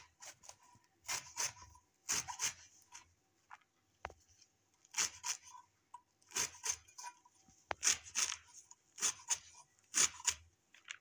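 Young bottle gourd leaves being sliced on a boti blade: crisp cutting strokes, mostly in quick pairs about a second apart, with a pause of about two seconds in the middle.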